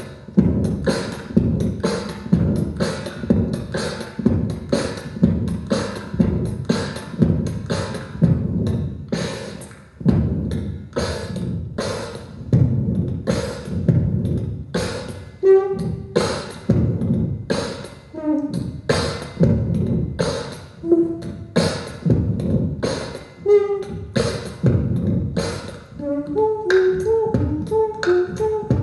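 Human beatboxing: a steady beat of mouth-made kick and snare sounds, about two a second, with quick hi-hat-like clicks between. Near the end, short pitched beeps in a quick up-and-down pattern join the beat.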